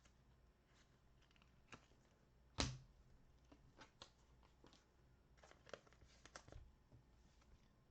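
Faint handling of trading cards and their packaging: scattered light clicks and short rustles, with one sharper tap about two and a half seconds in and a quick run of small clicks later on.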